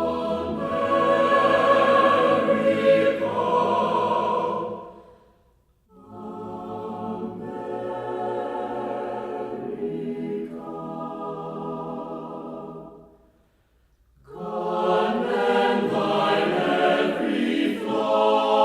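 Choir music: voices singing long held chords in three phrases, each broken by a brief silence, about five and a half and again about thirteen and a half seconds in.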